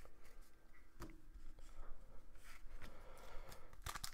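Faint handling noise of trading cards and a foil card pack: soft rustles and a few light taps as cards are set aside and the next pack is picked up.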